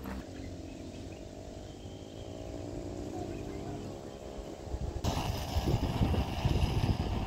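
Wind buffeting the microphone in uneven gusts, starting suddenly about five seconds in. Before that, a faint steady hum with several tones.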